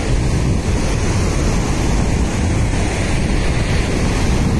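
Wind buffeting the microphone in a steady low rumble, over the continuous wash of sea surf.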